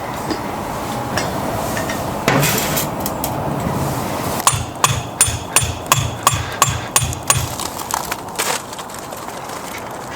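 Rapid hammering: a quick run of about a dozen sharp blows, roughly four a second, starting about four and a half seconds in, after a single louder knock a couple of seconds in.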